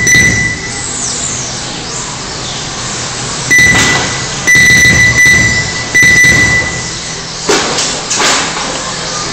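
Race lap-timing system beeping loudly and repeatedly as radio-controlled 1/10th-scale electric touring cars cross the timing line, several beeps in quick succession from about three and a half seconds in. Underneath, the faint high whine of the cars' 11.5-turn electric motors sweeps past, with a couple of sharp clacks near the end.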